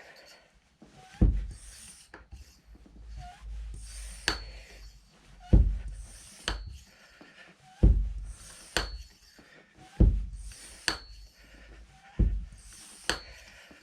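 High-pressure hand pump being worked in slow, even strokes, about five of them, one every two seconds or so. Each stroke brings a low thump followed by a sharp click with a brief high ring, with rubbing between. The pump is charging a PCP air rifle near the end of its fill, when the strokes are at their hardest.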